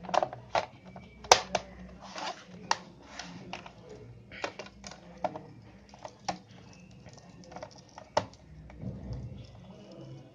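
Irregular sharp clicks and light taps of hard plastic and metal laptop parts being handled and fitted back together, the loudest a little over a second in.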